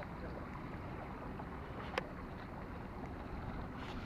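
Steady wind and water noise, with one sharp click about halfway through.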